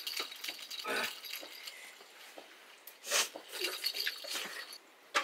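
People eating by hand from steel plates: fingers mixing rice and curry on the metal, with light clinks and small scraping sounds, and a short louder noise a little after three seconds in.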